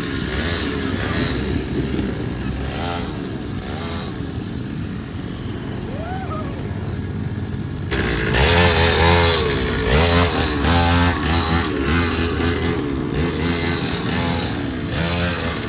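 Motorcycle engines running and revving, with rising pitch sweeps as throttles are opened; the sound grows suddenly louder about halfway through.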